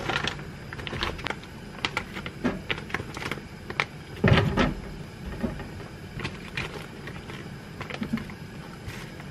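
Metal tongs clicking and scraping against a wire-mesh air fryer basket as pieces of chicken breast are laid in, with crinkling of the plastic food pouch. A heavier knock comes about four seconds in.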